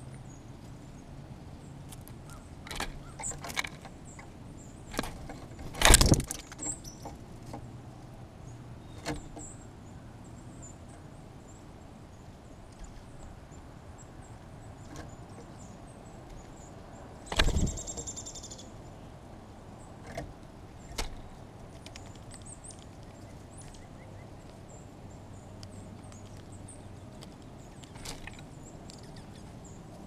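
Scattered sharp knocks and taps on a window-mounted seed feeder as birds land and peck, the loudest about six seconds in and another about seventeen seconds in. Faint high bird chips sound behind them.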